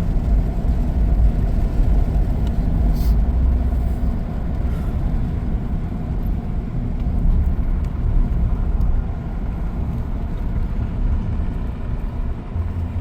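Vehicle engine and tyre noise while driving along a mountain road, a steady low rumble.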